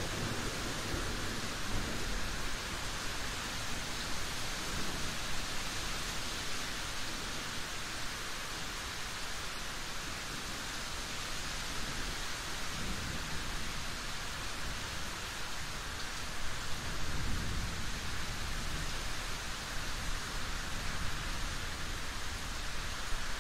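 Steady rain, an even hiss throughout, with low rumbles of thunder rolling in a few times. The clearest rumble comes about three-quarters of the way through.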